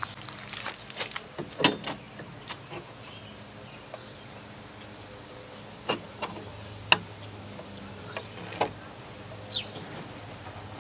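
Metal LED pod light and its steel mounting bracket clicking and knocking as they are handled and fitted together by hand: a quick run of clicks at first, then single sharp knocks every second or so from about halfway, over a low steady hum.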